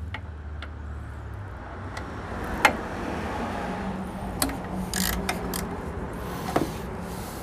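Hand tools working on the bolts of a bracket in a car's engine bay: a few scattered sharp metallic clicks and taps, the loudest about two and a half seconds in, over a low steady hum.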